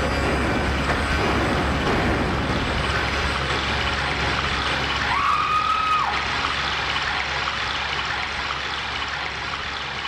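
Rain sound effect: a steady hiss of heavy rainfall played over the sound system. A short high tone sounds briefly about five seconds in.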